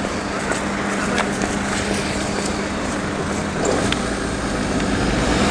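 Road traffic noise on a city street: a steady hiss of vehicles with a low engine hum that fades about halfway through, and a few faint clicks.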